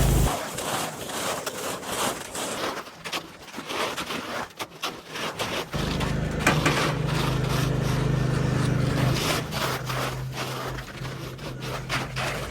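Hand tools scraping and knocking through wet concrete, with the steady low hum of a heavy engine that cuts out just after the start and comes back about halfway through.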